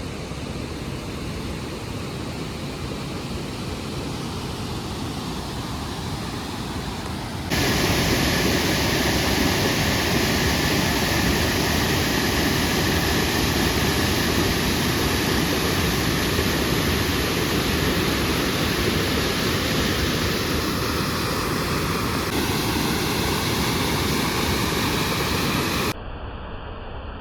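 Steady rushing water from a waterfall and river, with no pitch or rhythm, jumping abruptly louder about seven seconds in and dropping back near the end.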